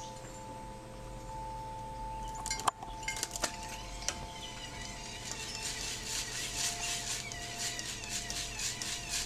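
Small birds chirping, thickening into busy chirping and trills in the second half. About two and a half seconds in there is one sharp clink, with a few lighter clicks after it, as a squirrel scrambles off a hanging tube bird feeder.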